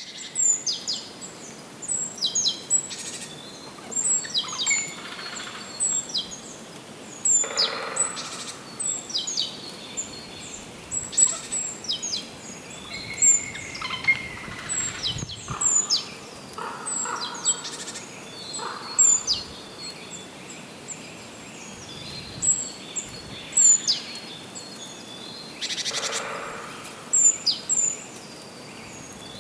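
Wild songbirds chirping and calling: many short, high-pitched calls that drop sharply in pitch, repeated every second or so, over a steady background hiss.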